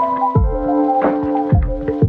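Background music with a steady beat: deep drum thumps under held synth chords.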